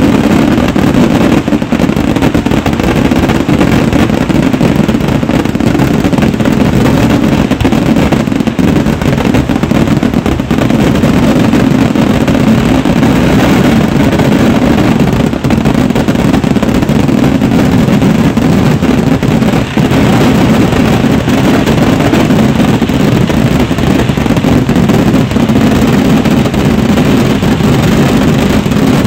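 Kerala temple-festival fireworks (vedikkettu) at full barrage: countless firecrackers and shells exploding in rapid succession, merging into one loud, unbroken din with no pause.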